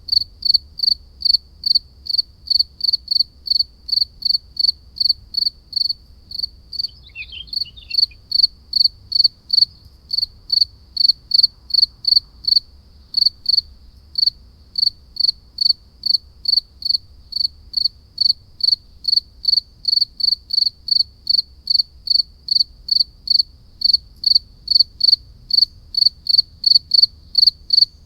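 A cricket chirping steadily, a short high-pitched chirp about two and a half times a second. About seven seconds in, a brief falling call sounds once under it.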